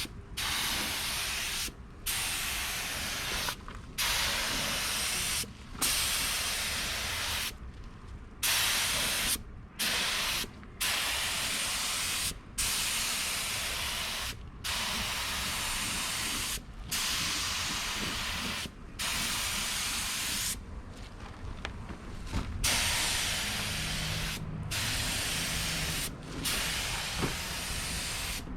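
Compressed-air paint spray gun hissing in repeated passes, about one every two seconds, each cut off sharply as the trigger is released.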